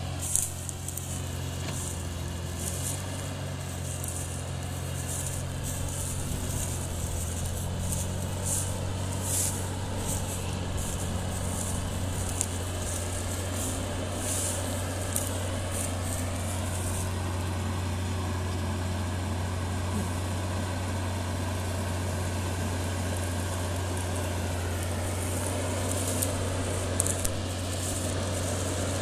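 New Holland tractor's diesel engine running steadily as it pulls a loaded grain trailer slowly across stubble. A scratchy high hiss comes and goes over the engine sound in the first half and again near the end.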